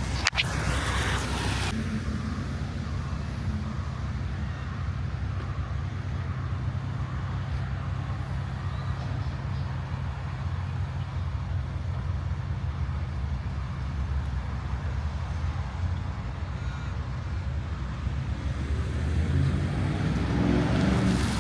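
A motor vehicle's engine running with a steady low rumble, growing louder over the last few seconds.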